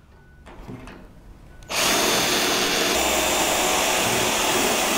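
Power screw gun driving a self-tapping screw through an aluminum L-bracket into an aluminum column, starting a little under two seconds in and running steadily. Before that, faint handling of the screw as it is set.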